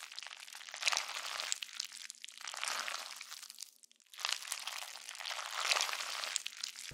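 Thick PVA glue and borax slime squelching and crackling as it sags and drips off a person, in a series of wet, crackly surges with a brief lull about four seconds in.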